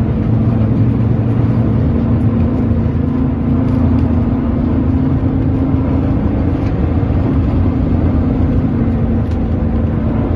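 Vintage electric tram running along the track, heard from inside its cab: a steady low rumble of the wheels on the rails with a constant hum from the running gear, and a few faint ticks.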